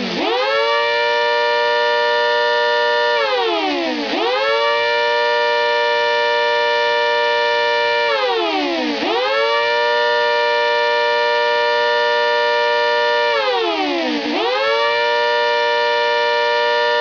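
A homemade miniature ACA Hurricane chopper siren, blown by a vacuum cleaner with its chopper running upright, sounds a steady tone. The pitch dips sharply right at the start and three more times, about every five seconds: each time it falls for about a second and climbs quickly back.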